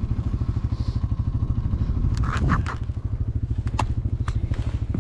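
A small engine running steadily at idle, a fast even low thrum, with a few sharp clicks and knocks over the last few seconds.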